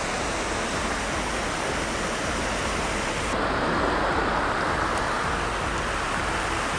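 Steady rush of water from a warm hot-spring stream and waterfall flowing over rock. A little past halfway the sound turns somewhat duller and fuller.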